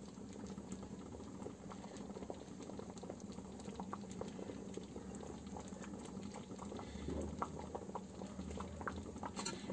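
Thick horse gram (gahat) phaanu bubbling at a simmer in an iron kadhai: a steady soft bubbling with many small pops, the stew cooked down and reduced.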